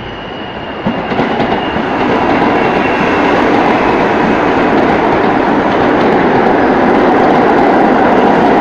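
New York City subway train running close by on the near track, its steel wheels rumbling and clattering on the rails, growing steadily louder as it arrives.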